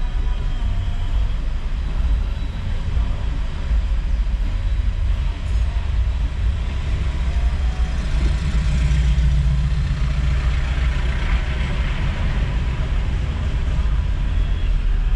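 Low, steady rumble of a car driving slowly, heard from inside the cabin: engine and road noise, a little louder around the middle.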